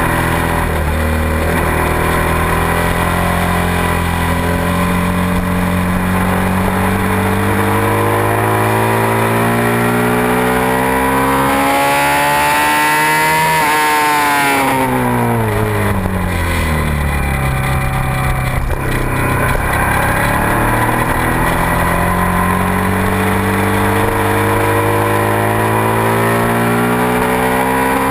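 Suzuki SV650 V-twin engine heard from a camera mounted on the bike, with wind rush throughout. Revs climb steadily under acceleration for about half the clip, drop off quickly as the bike slows for a corner, then climb again towards the end.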